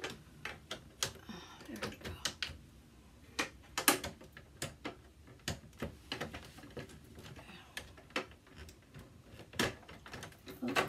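Hard plastic pieces of a Frozen 2 Arendelle Castle toy dollhouse being handled, slid and snapped together: scattered sharp clicks and knocks, with louder snaps about four seconds in and again near the end.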